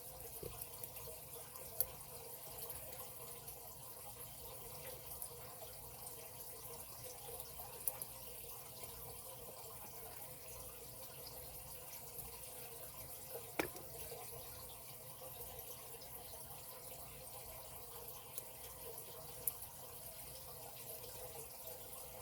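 Lock pick working the pins of a padlock under tension: faint scratching and ticks, with four sharp clicks spaced about six seconds apart, over a steady background hiss.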